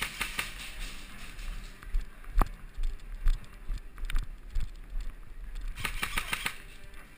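Airsoft guns firing: scattered single sharp shots and a short rapid burst of about eight shots near the end, over the low rattle and thumping of a player moving with his gear.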